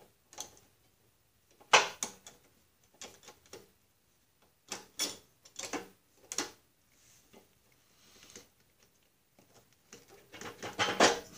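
Steel tools clicking and clinking against a coiled spring and steel linkage as a valve spring compressor is worked onto the shift lever spring of a Snapper machine: scattered sharp clicks, the loudest about two seconds in, and a quick run of clinks near the end.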